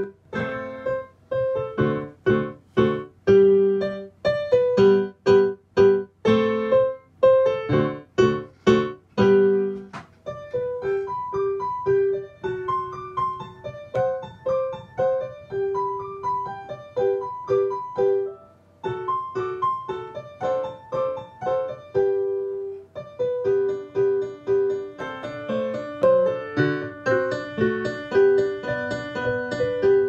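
Sampled piano (Sonivox Eighty Eight software instrument) played from an M-Audio Hammer 88 keyboard and heard through a speaker: loud repeated chords for about the first ten seconds, then a lighter run of single notes and chords. The player reports the sound as distorted and delayed, a fault in the keyboard-to-computer setup.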